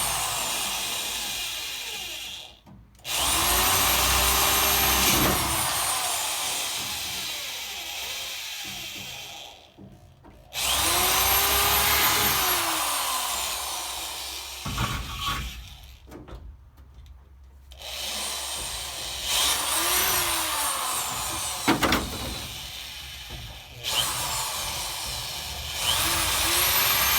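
Power drill drilling out the spot-welds and rivets in sheet-metal body panels, in several short runs. Each run starts with the motor spinning up, then the motor runs steadily, and each run stops before the next begins.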